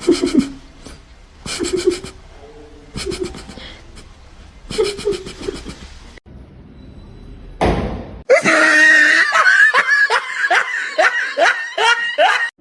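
A person laughing. There are a few short bursts of laughter in the first half, then a loud, sustained fit of laughter in rhythmic pulses through the second half.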